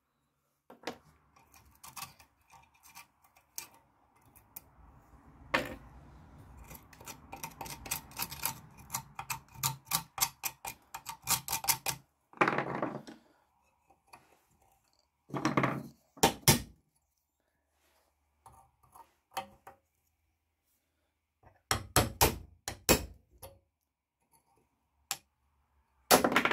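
Sharp metal-on-metal taps and knocks as a steel pin punch is worked against a rusty bayonet tang clamped in a vise: a fast run of taps that grows louder, then several heavier scraping knocks and short groups of strikes.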